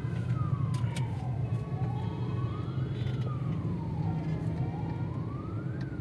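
An emergency-vehicle siren wailing, its pitch rising and falling slowly in a cycle of about three seconds. Under it runs the louder low rumble of engines in a traffic jam.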